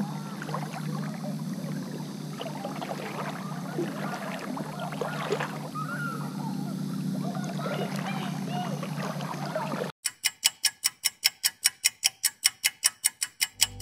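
River water gurgling and trickling past the kayak, with a steady low hum. About ten seconds in it cuts off sharply into a fast, even run of typewriter key clicks, about six a second, as a caption types out, and an acoustic guitar starts right at the end.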